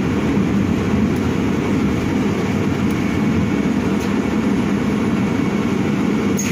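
Ursus CS12E battery-electric city bus driving along, heard from inside the cabin: a steady low rumble of tyres and road.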